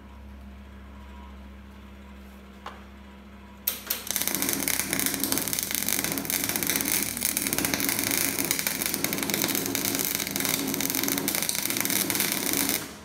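Arc of an old Elektra Beckum MIG welder running gasless flux-cored wire. After a low machine hum, the arc strikes about four seconds in, crackles steadily for about nine seconds, then cuts off suddenly. The owner puts the rough result down to an uneven wire feed from a feed roller that sometimes sticks.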